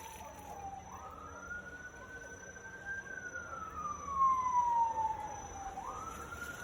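A siren wailing: a single tone that slides slowly up and down, jumping quickly back up about a second in and again near the end.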